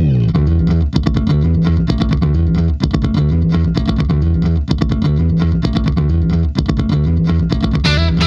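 Background music with electric guitar, bass guitar and a steady beat, a brighter, busier section coming in near the end.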